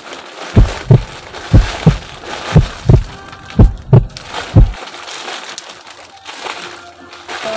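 Deep thumps in pairs, like a heartbeat, about once a second, stopping about five seconds in, over the rustle of a plastic mailer bag and plastic-wrapped shirts being handled.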